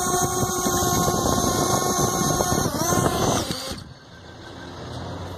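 Ex4 Pro quadcopter's motors and propellers whining steadily as it hovers low and sets down. The whine then falls in pitch as the motors spin down, and it stops a little under four seconds in, leaving faint street background.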